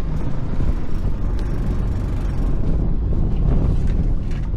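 A small fishing boat's motor running steadily as the boat is under way, with wind buffeting the microphone.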